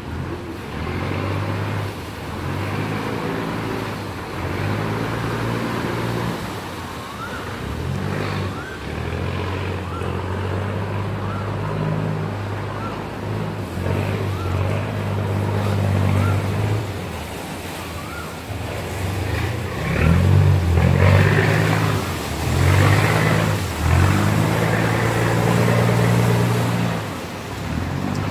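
Canal taxi boat's engine running, its low drone stepping up and down in pitch as the throttle is opened and eased, and loudest from about two-thirds of the way through; water rushes and churns along the hull.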